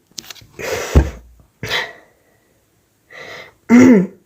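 A person's voice close to the microphone making throat noises: a cough about a second in, short breathy bursts, and a brief voiced sound near the end.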